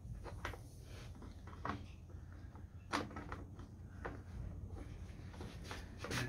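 Scattered light clicks and knocks of an Oregon CS1400 electric chainsaw's plastic body being handled and shifted on a tool cart, the sharpest about three seconds in, over a low steady rumble.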